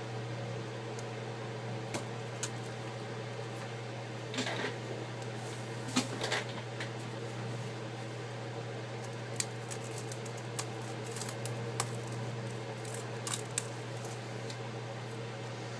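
A heat gun running with a steady hum and blowing noise while warming the tablet's glass to soften the adhesive. Occasional small clicks and short scrapes from tools on the tablet come through over it.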